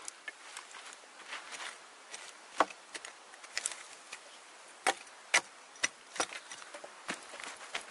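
Hatchet chopping at a charred log: several sharp, irregularly spaced blows, with lighter knocks between them.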